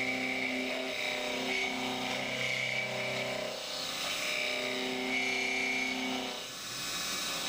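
CNC milling machine's carbide end mill cutting metal under flood coolant: a steady pitched cutting tone over a wash of spraying coolant, the tone weakening and returning every second or two as the cut changes.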